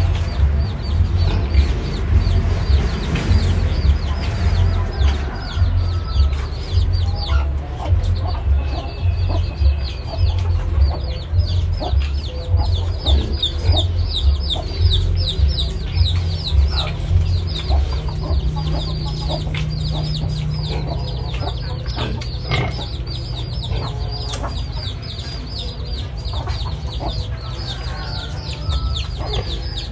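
Chickens clucking, with a chorus of many short, high, falling peeps from chicks that grows dense about ten seconds in. A low pulsing rumble runs underneath.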